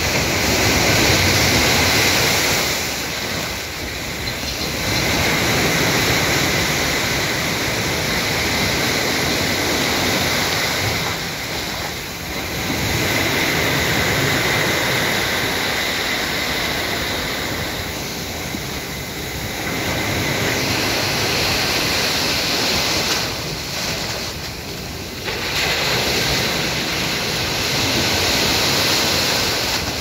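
Sea surf breaking and washing up the beach: a loud, continuous rush of water that swells and eases every several seconds as each wave comes in and draws back.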